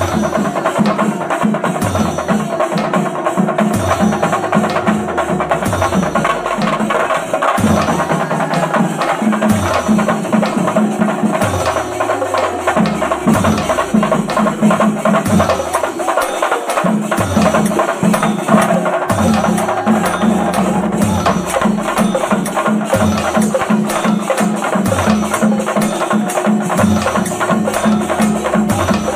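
Background music: fast, busy percussion over a deep bass that slides down in pitch again and again.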